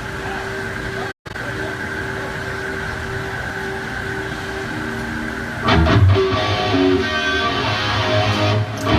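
Band sound check on electric guitar through an amplifier. A steady held tone rings for the first five seconds or so, broken by a brief dropout just after a second in. Then louder guitar playing with low bass notes starts a little before the six-second mark.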